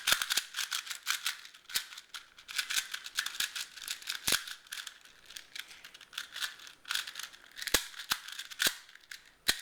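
A 2x2 Rubik's cube (pocket cube) being scrambled by hand: rapid, irregular clicking and rattling as its plastic layers are twisted, several clicks a second.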